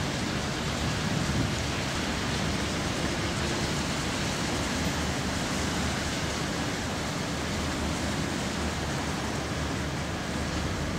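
Steady rushing ambience of a snowbound city street at night, an even noise with a low rumble underneath and no distinct events.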